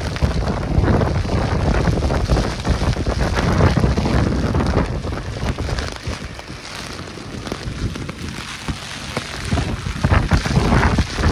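Storm rain from Hurricane Ian with gusting wind buffeting the microphone. The noise eases for a few seconds past the middle and builds again near the end.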